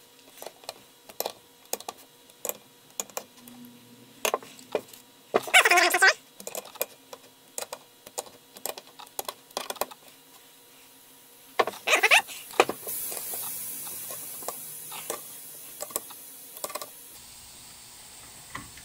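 Torque wrench ratcheting in light, irregular clicks as valve body bolts are run down and torqued to 45 inch-pounds, with louder rattling clicks about six and twelve seconds in.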